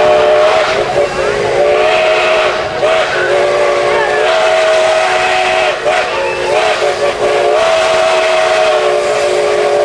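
Steam locomotive whistle blowing one long blast of several notes sounding together, wavering slightly in pitch a few times, with a hiss of steam underneath.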